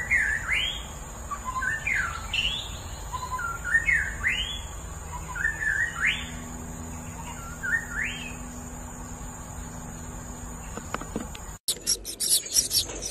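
A songbird singing the same short phrase of quick upswept whistled notes about five times, a phrase every second and a half or so, then falling silent. Near the end the sound cuts abruptly to a rapid scratchy clicking.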